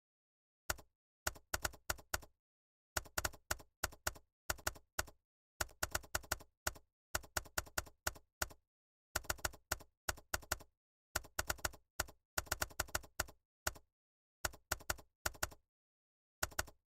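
Computer keyboard being typed on in short bursts of a few keystrokes each, with brief pauses between, at an uneven beginner's pace. The typing stops near the end.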